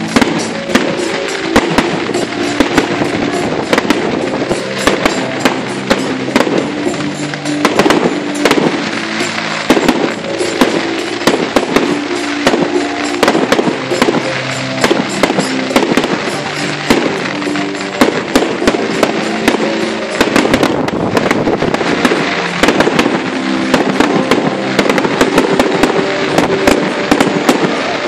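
Aerial fireworks bursting in quick succession, a steady run of sharp bangs and crackles, with music playing alongside.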